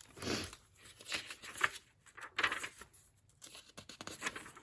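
Paper pages of an old hardcover book being turned and handled, with several short rustling swishes and a few light clicks.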